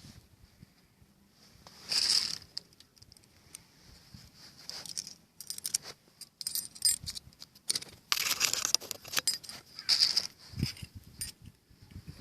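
Metal pump parts and tools clinking and rattling as they are handled during reassembly of a tractor water pump. The clinks come in scattered bursts, loudest about two seconds in and again from about eight to ten seconds in. A faint steady high-pitched tone runs underneath.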